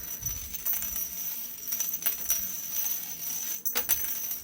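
Light rustling with scattered small ticks and taps from a feather cat toy being handled and moved about, a couple of soft thumps near the start and a sharper cluster of clicks near the end.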